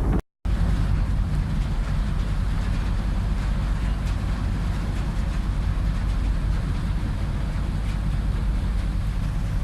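Car ferry MV Clansman under way: a steady low engine and hull rumble with an even hiss of rushing air and water above it.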